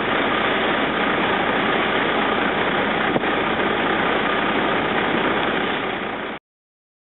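Heavy farm machinery engine running steadily with a dense mechanical rumble, then cutting off suddenly about six seconds in.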